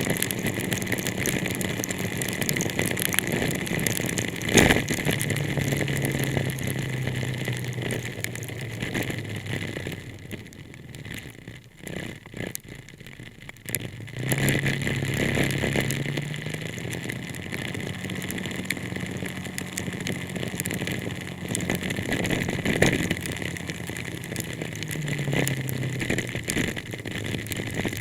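Car driving in heavy rain, heard from inside: a steady wash of rain and road noise with the engine note stepping up in pitch a few times, dropping quieter for a few seconds in the middle.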